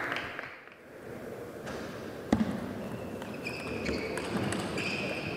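Table tennis rally: sharp clicks of the celluloid ball off the bats and table, with high squeaks of shoes on the court floor over the last couple of seconds.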